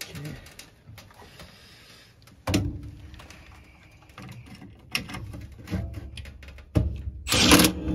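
Cordless drill driving in the screws that mount a new furnace inducer motor: several short bursts of the drill motor from about a third of the way in, the longest and loudest near the end. Before them come light clicks and rattles of the motor housing and wires being handled.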